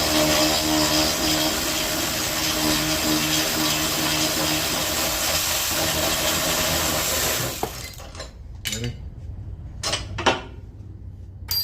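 A power tool runs steadily for about seven and a half seconds, spinning out a 19 mm bolt that holds the steering rack, then stops suddenly; a few short metallic clinks follow.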